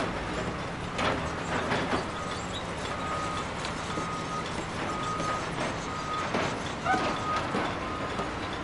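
Reversing alarm on a construction vehicle beeping about once a second, starting about two seconds in, over a steady low rumble of machinery and traffic. Several sharp metallic clanks are heard, the loudest near the start and about seven seconds in.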